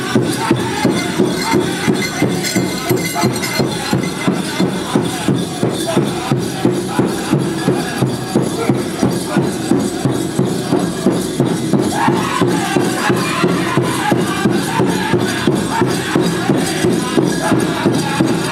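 Powwow drum group singing over a steady, evenly repeating drumbeat, the song for the chicken dance.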